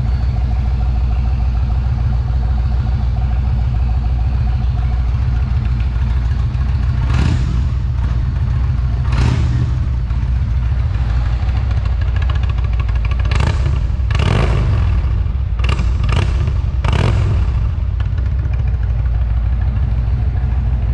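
2019 Indian Springfield Dark Horse's Thunder Stroke 111 V-twin idling through a Rinehart aftermarket exhaust. After several seconds it is revved in about seven short throttle blips, several of them in quick succession.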